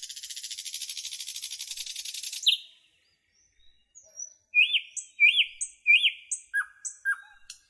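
Songbirds calling: a fast, high buzzing trill for about two and a half seconds, a short pause, then a run of separate chirps, three looping notes followed by two lower, shorter ones.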